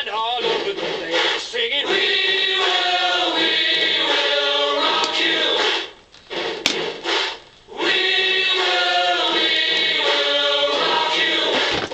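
Choral music: several voices singing held chords, breaking off briefly twice around the middle.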